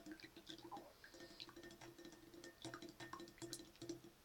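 Faint drips and light clicks as borax water is added to a guar gum slime mixture in a bowl and stirred, the mixture thickening.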